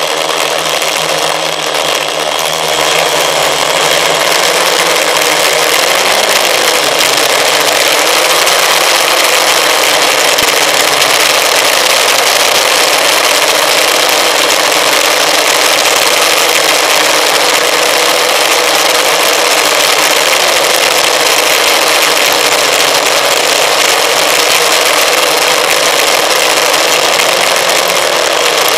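Electric motors and propellers of an FPV multirotor drone, heard through its onboard camera: a steady whine of several tones over a noisy rush. The lower tones rise and fall slightly in pitch, and the sound grows louder about three seconds in.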